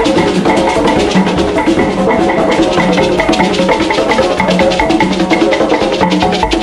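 A troupe of drummers playing tall hand drums in a steady, fast rhythm.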